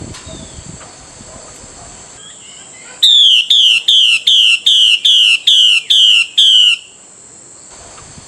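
Female Chinese hwamei calling to a male: a loud run of nine identical down-slurred whistled notes, about two and a half a second, starting about three seconds in and lasting about four seconds. A faint steady high insect chirring runs underneath.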